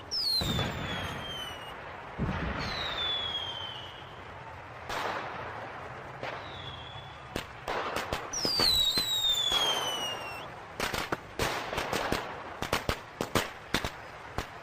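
Fireworks going off: several whistling fireworks, each with a whistle that falls in pitch, among pops and blasts. Near the end comes a fast, irregular string of sharp cracks like firecrackers.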